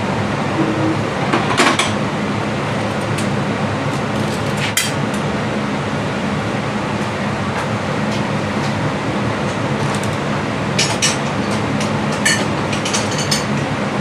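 Metal hand tools clinking and tapping against steel parts, a few scattered clinks with a quick run of them near the end, over a steady low mechanical hum.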